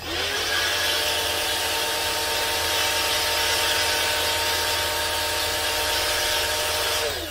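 A pressure washer spraying through a four-nozzle undercarriage cleaner attachment: a steady hiss of water jets over the hum of the washer's pump motor. The motor spins up as the spray starts and winds down just before the end, when the spray stops.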